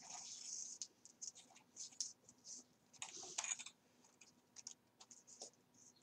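Soft, irregular scratching and rustling as binding thread is looped and pulled through paper signatures and a scallop shell cover during coptic stitching, with longer rustles just after the start and around three seconds in.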